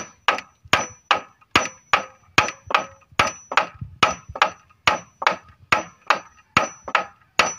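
Claw hammer driving a nail into a wooden plank: steady, even blows about two and a half times a second, each with a short high metallic ring.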